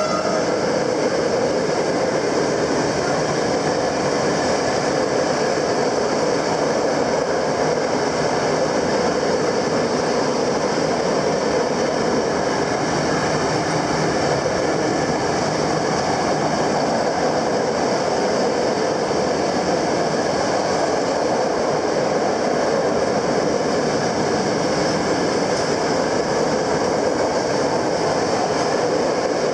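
A train running past on the rails, a steady unbroken rumble of wheels and wagons with no let-up.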